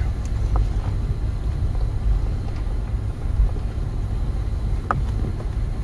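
Toyota 4Runner creeping along at low speed, a steady low rumble of engine and road noise heard from inside the cabin, with a few faint clicks.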